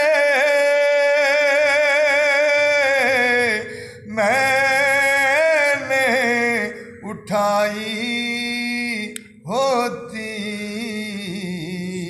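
A man singing an Urdu naat unaccompanied, drawing out long ornamented notes with wavering pitch, broken by short breaths about four, seven and nine seconds in.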